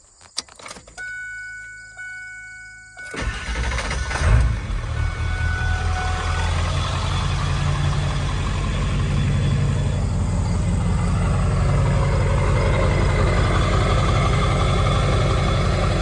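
Ford 7.3L Powerstroke V8 turbo-diesel, warmed up, restarting: a few clicks, then the engine catches about three seconds in with a brief loud burst and settles into a steady idle, smooth and with no surge.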